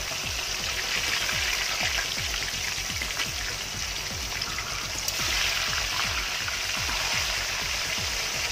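Fish steaks deep-frying in a wok of hot oil: a steady, dense sizzle and crackle of bubbling oil, with a click of metal tongs about five seconds in as the steaks are turned.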